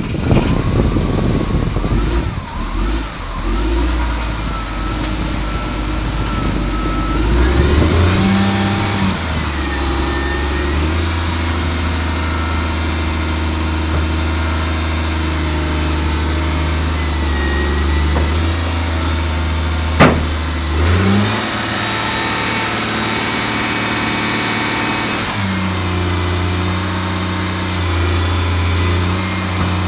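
Caterpillar 950G wheel loader's diesel engine running, revving up about eight seconds in and holding at the higher speed, dipping briefly and revving higher again a little past twenty seconds, then settling to a lower steady speed near twenty-five seconds. A thin high whine rises with the revs, and a single sharp click comes about twenty seconds in.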